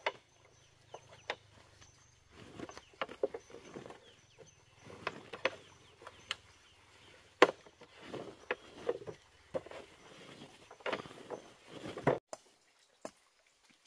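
Irregular wooden knocks and taps, as of bamboo poles being handled and struck, with one sharper crack about seven and a half seconds in.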